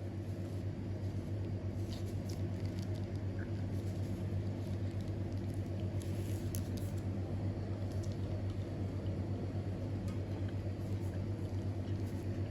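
Steady low machine hum with a fast, even flutter, as of a motor running, with a few faint clicks over it.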